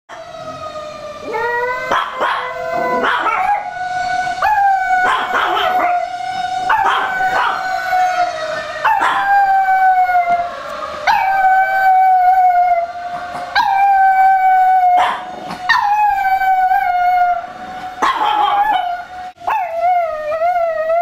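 Long-coat Chihuahua howling in a string of about nine long calls, each about two seconds, rising at the start and then sagging slightly; she is answering a siren. A second dog barks in short sharp yaps between the howls.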